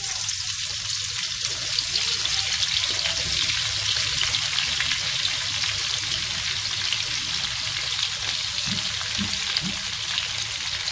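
Sliced onion rings sizzling in hot oil in a wok, a steady crackling hiss.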